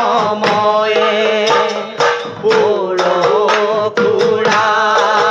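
Assamese dihanam devotional singing: male voices sing the hymn over a steady beat of percussion strokes, about two a second.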